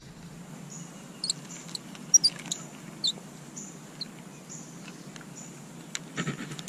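Outdoor ambience with insects buzzing in short, repeated high-pitched bursts and a few brief, falling bird chirps. A couple of sharp light clicks come near the end.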